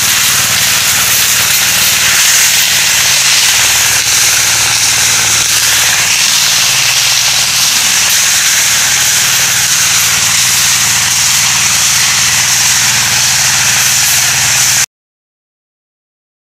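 Steady engine hum under a loud hiss, cutting off abruptly near the end.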